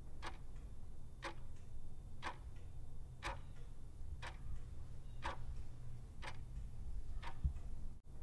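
Clock-ticking countdown sound effect, about one tick a second over a low steady hum, timing the pause while a quiz question waits for its answer.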